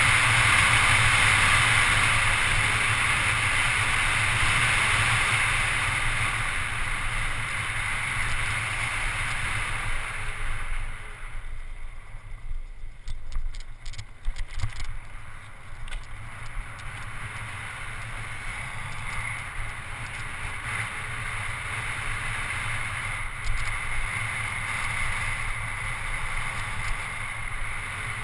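Wind rushing over a GoPro HD camera carried on a mountain bike during a fast descent on a paved road. The rush eases a little after about ten seconds, with a few sharp knocks over the next several seconds, then runs on steadily.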